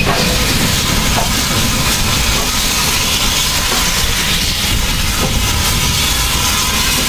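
BR Standard Class 5MT 4-6-0 steam locomotive No. 73096 standing and letting off steam with a loud, steady hiss.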